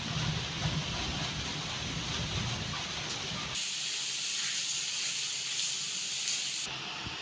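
Steady rain falling, then a sudden switch about three and a half seconds in to onion bhajiyas sizzling in hot oil in a kadhai.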